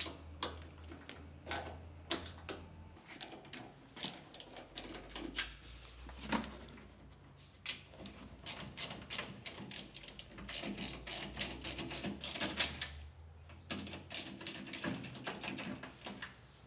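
Screws being undone from a washing machine's panel with an Allen key: scattered metal clicks and ticks, coming in quick runs in the second half, over a faint low hum.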